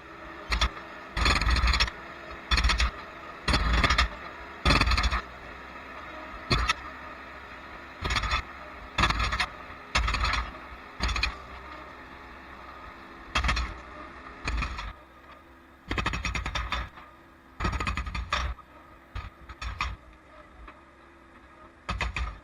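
Bobcat skid steer's hydraulic breaker hammering concrete in short, irregular bursts of rapid blows, over the steady running of the skid steer's engine.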